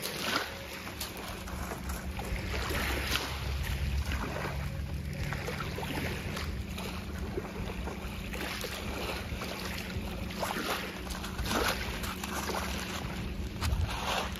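Small waves lapping and splashing at a pebbly shoreline in irregular little bursts, with wind rumbling on the microphone.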